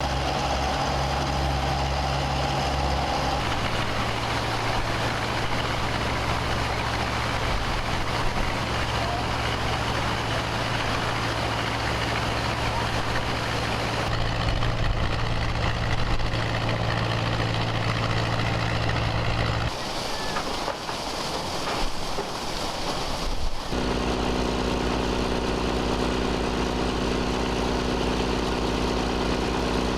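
Engine-driven dewatering pumps running steadily with a low engine hum. The hum changes abruptly several times, as from one pump to another, with a shorter, quieter stretch of mostly noise near the end.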